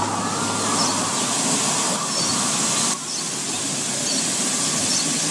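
Lowered cars' undersides scraping and grinding on the pavement as they creep over uneven ground, a steady harsh scraping noise. About three seconds in it cuts to a second car making a similar noise.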